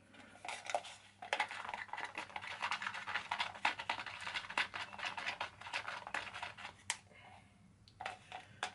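A wooden stirrer scraping and clicking around the inside of a plastic cup, mixing track sleeper grime paint with thinners. A fast, continuous run of scratchy clicks lasts about five seconds, then comes a sharp knock and a couple of light taps near the end.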